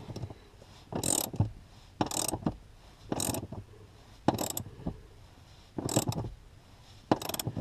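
Hand ratchet with a socket turning a seat-mount bolt: six short runs of clicking about a second apart, one on each back-stroke.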